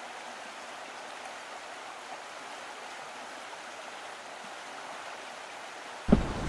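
Steady, even rushing of a mountain stream running over rocks. Near the end, a sudden burst of low wind noise hits the microphone.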